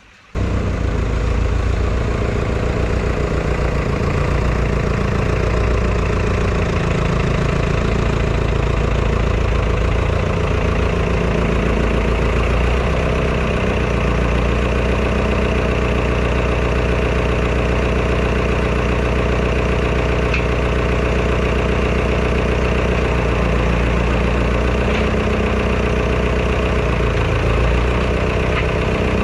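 A large engine idling steadily, close by. It comes in abruptly right at the start.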